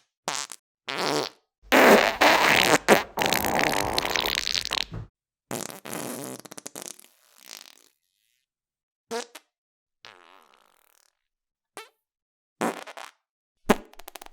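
A series of human farts edited back to back with dead silence between them: a few short ones at first, a long loud one from about two to five seconds in, then a medium one and several short, spaced-out ones toward the end.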